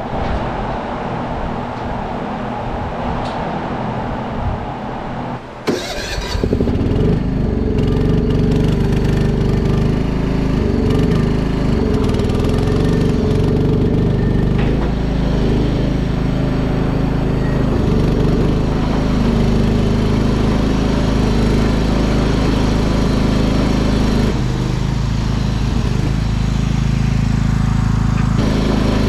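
Farm machine engine running. About six seconds in, the sound changes abruptly, with a sharp click, to a louder, steady engine note.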